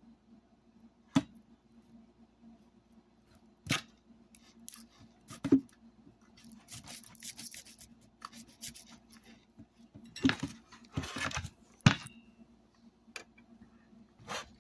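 Metal hand snips cutting into a loudspeaker's parts: several sharp snaps spread out, with two stretches of scraping in the middle.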